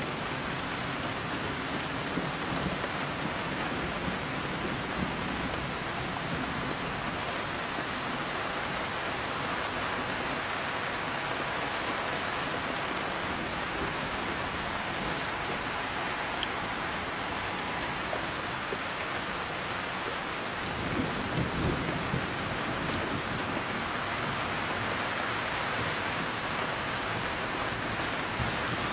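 Heavy rain falling steadily, with low rolls of thunder rumbling under it, one fading at the start and another about two-thirds of the way through.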